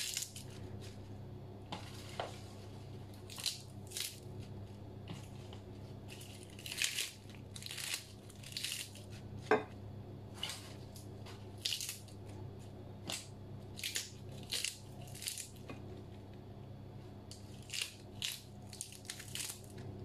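Lettuce leaves being torn apart by hand: short snaps and rustles come irregularly, about one a second, over a low steady hum.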